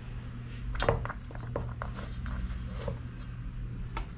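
Scattered light taps, clicks and rustles of a tilapia being handled and set into a cooking pot, the sharpest knock about a second in, over a steady low hum.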